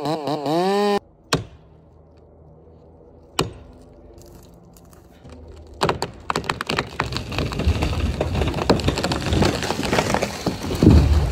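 A chainsaw running, its pitch wavering, then shutting off about a second in. After a quiet stretch with two sharp clicks, a large conifer's hinge wood starts cracking and popping about six seconds in. The cracking builds into continuous splintering as the tree goes over, with heavy thuds as it hits the ground near the end, the loudest part.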